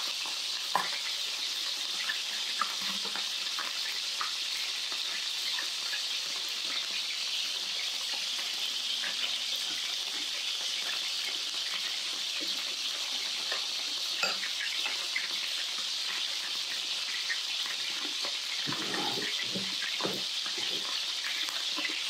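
Sliced duck sizzling steadily in a frying pan, with a few light clicks of spoon and chopsticks against bowls.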